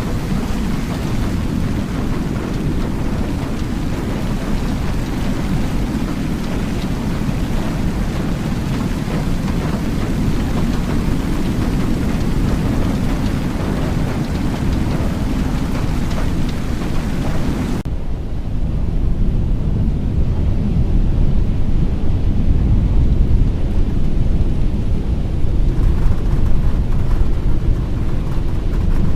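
Storm noise: wind and rain rushing with a deep, steady rumble. About two-thirds of the way through, the high hiss drops away suddenly, leaving the low rumble.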